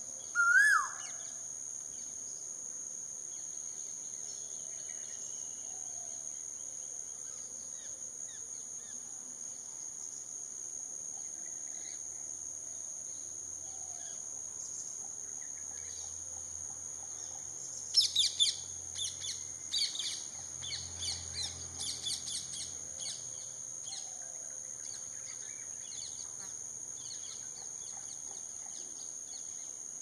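Male Asian koel gives one loud rising whistled call just after the start, over a constant high-pitched drone. About 18 seconds in comes a burst of rapid high chirping lasting some five seconds.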